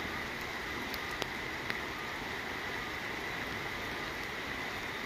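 Steady rush of floodwater, with a few faint ticks in the first two seconds.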